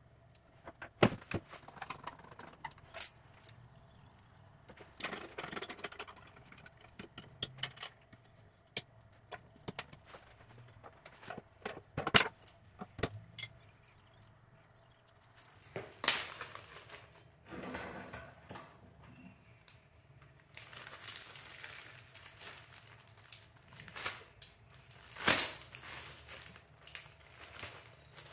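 Handling sounds from an old painted wooden washstand as its drawer and cabinet doors are opened and worked: scattered wooden knocks and clicks, metallic clinks of loose hardware, and short stretches of rustling.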